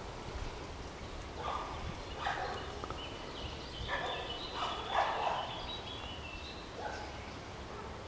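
Long-eared owl calls: about six short calls, with thin high squeaky notes between about three and six seconds in.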